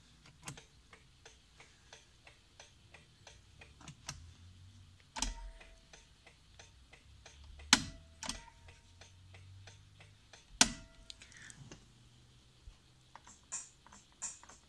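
Light, regular ticking from the 1983 Porsche 911SC's electrics with the ignition key on, about three ticks a second. It is followed by a few louder, sharp clicks, some with a brief tone after them.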